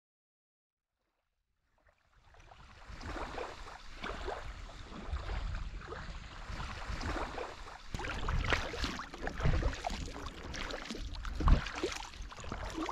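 Silence for about two seconds, then lake water splashing and lapping with irregular gusts of wind buffeting the microphone.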